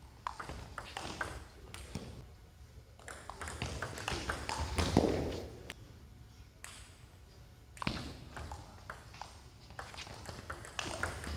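Table tennis rallies: the plastic ball clicking off the paddles and the table in quick runs of sharp ticks near the start and again near the end. Between the rallies there is a louder, longer stretch of noise about halfway through.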